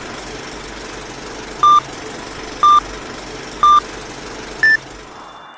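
Film-leader countdown sound effect: three short beeps about a second apart, then a fourth, higher-pitched beep, over a steady hiss.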